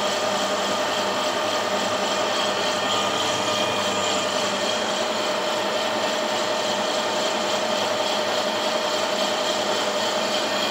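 Metal lathe running steadily with a constant whine while the turning tool takes the last cut across the outside diameter of a fibre gear blank, shaving it down to fine dust.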